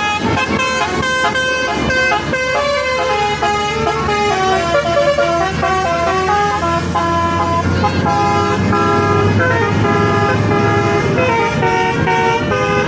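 Bus 'telolet' (basuri) horn: a multi-tone musical air horn on an Indonesian bus playing a stepping tune of several notes, over the bus engine running, which grows louder about halfway through.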